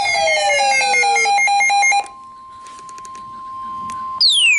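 Synthetic electronic alert tones: loud falling whistling sweeps over rapidly pulsing beeps, cutting off sharply about two seconds in. A fainter steady tone follows, and another falling sweep starts near the end.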